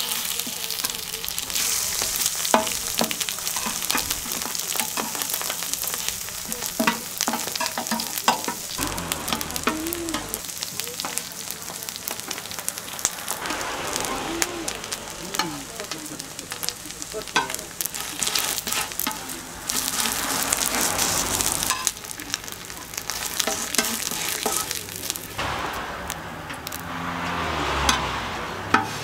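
Eggs, ham slices and bread sizzling on a flat aluminium griddle, with scattered sharp clicks and scrapes of a slotted spatula and metal tongs on the metal.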